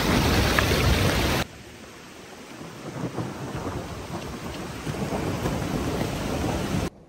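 Hailstorm: hail and rain falling hard with a deep low rumble, then abruptly quieter about a second and a half in. The quieter patter builds again and cuts off suddenly near the end.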